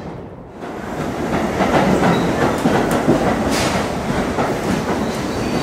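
New York City Subway 1 train pulling out of the station, its wheels rumbling and clattering over the rails. The noise rises sharply about half a second in, and a thin wheel squeal comes in near the end.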